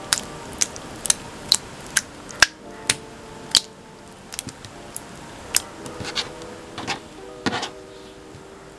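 Purple slime being squeezed and pressed in the hands, making sharp wet clicks and squelching pops, about one or two a second, sharper in the first half.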